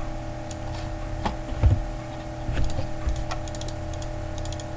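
Scattered light clicks of a computer mouse and keyboard, several in quick runs about three and a half seconds in, over a steady electrical hum.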